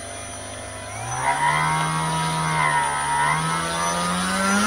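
Brushless MM2212D electric motor spinning a model plane's propeller at part throttle: a steady whine that steps up in pitch about a second in, then climbs slowly.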